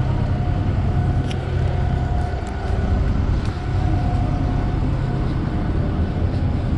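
Jet aircraft noise on an airport apron: a steady low rumble with a steady turbine whine over it, and a few faint clicks.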